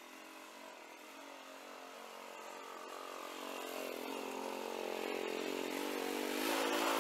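Small mini-tractor engine running as the tractor drives out toward the listener, growing steadily louder, its pitch wavering slightly.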